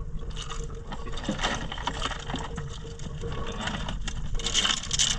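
Small sikad-sikad conch shells clattering and clicking against each other as they are handled and tipped from a container into a plastic tub. The clatter is densest about four and a half seconds in.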